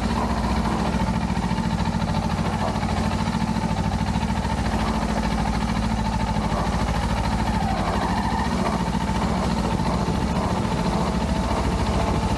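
Kawasaki Ninja 400's 399 cc parallel-twin engine running steadily at an even speed, with a steady hiss over it.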